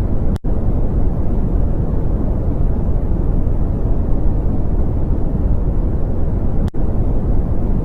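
Steady, deep rumbling noise from an audio rendering of a planet's space sounds, with two momentary dropouts, one about half a second in and one near the end.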